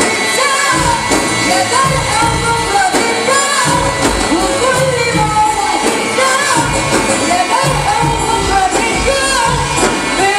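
A young man singing an ornamented, wavering melody into a microphone over loud amplified Egyptian wedding band music with keyboard and a steady pulsing drum beat.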